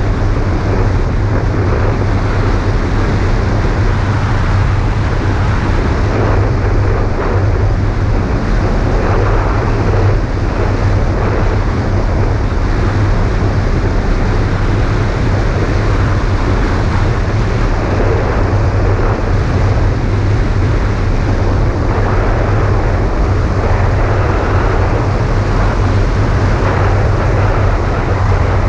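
Steady in-flight noise of an ultralight float trike heard from a camera on its wing: a loud, deep rumble with a broad rush above it, unchanging throughout.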